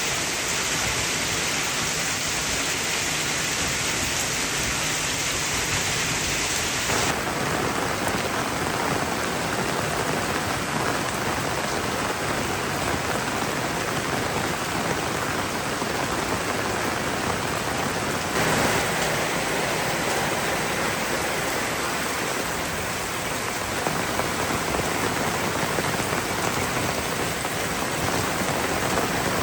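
Heavy rain pouring down in a steady, loud hiss. Its tone changes about seven seconds in, and there is a brief louder surge at about eighteen seconds.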